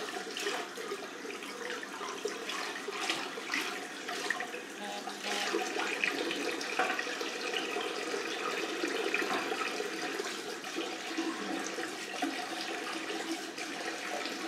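Tap water running steadily into a sink, with irregular splashing as a face is rinsed with cold water after a shave.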